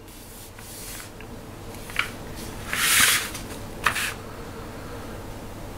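Paper instruction booklet rustling as hands shift and smooth it flat, with a couple of light taps and one louder rustle about three seconds in.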